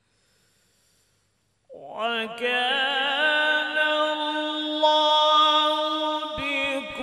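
A man's melodic Quran recitation (tilawat): after a pause of near silence, his voice comes in about two seconds in and holds a long, ornamented note with wavering pitch.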